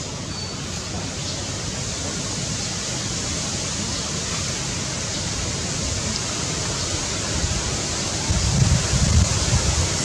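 Outdoor ambience of steady wind hiss, with low gusts buffeting the microphone from about eight seconds in.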